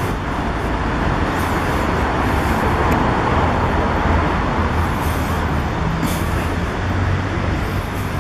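Street traffic on a busy city boulevard: vehicle engines running close by with a steady low rumble, and a short hiss about six seconds in.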